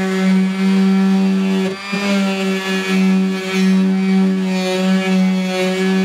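Electric random orbital sander running steadily as it sands hardened body filler on a steel door panel, its motor giving a constant whine over a gritty hiss. The sound briefly dips about two seconds in.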